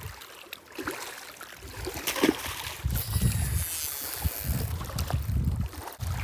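Wind gusting on the microphone in uneven rumbles, with a few small clicks and a brief hiss about three seconds in.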